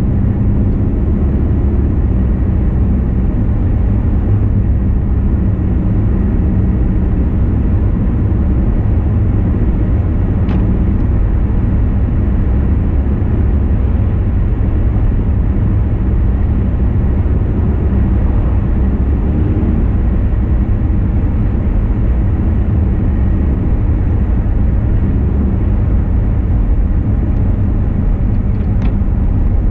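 Steady low rumble of engine and tyre noise heard from inside a moving car's cabin.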